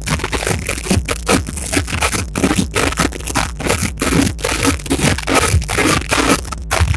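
Loud, distorted music mixed with scraping and crackling noise, with irregular knocks throughout.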